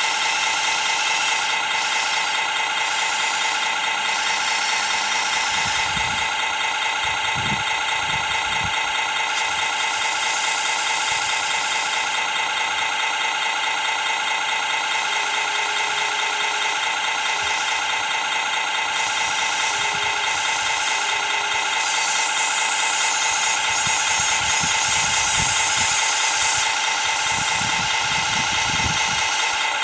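Radio-controlled model excavator running with a steady, even-pitched mechanical drone, with low knocks and scrapes as its bucket works the wet mud, a few seconds in and again near the end.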